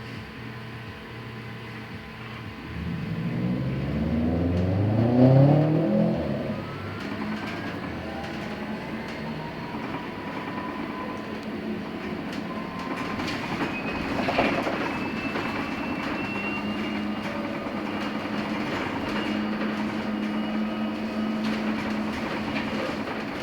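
LiAZ-6274 electric bus's traction motor whining and rising in pitch as the bus pulls away, loudest a few seconds in. Then a thinner electric whine climbs slowly over steady road rumble heard from inside the cabin, with one short clatter about midway.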